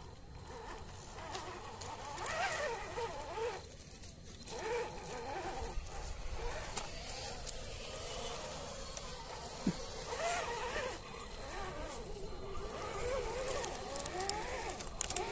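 Electric motor and gearbox of a 1/10 scale RC rock crawler whining, the pitch rising and falling with the throttle as it crawls through mud and over rocks.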